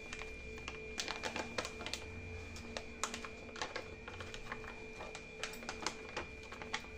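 Crinkling of a plastic packet of instant gulab jamun mix being handled and shaken as the powder is tipped out into a glass bowl, with irregular crackles throughout.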